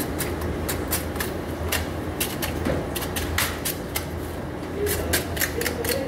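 A hand tool scraping at a patched plastic waste pipe joint, irregular scratchy strokes in quick clusters, over a steady low hum.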